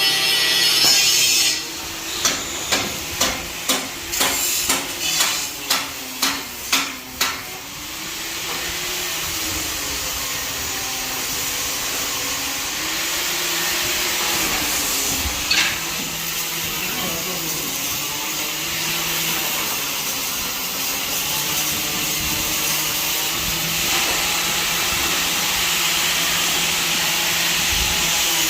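About ten hammer blows on metal, a little under two a second, then a long steady hissing crackle of arc welding.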